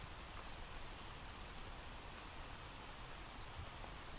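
Faint, steady rain: a recorded rain-ambience track playing as a background bed.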